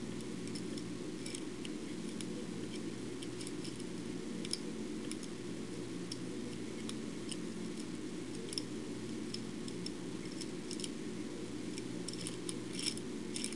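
Faint, irregular metallic ticks and light scrapes of a stainless steel hook pick working the pins of a five-pin brass lock under a tension bar, with a few quick clicks close together near the end, over a steady low hum.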